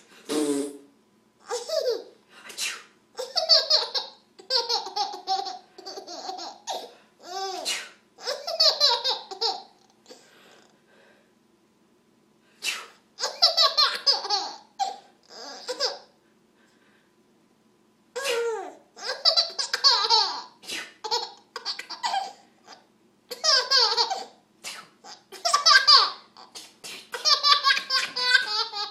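A baby laughing hard in repeated bouts of short, high, breathy belly laughs. The laughter stops twice for a couple of seconds and starts up again, loudest near the end.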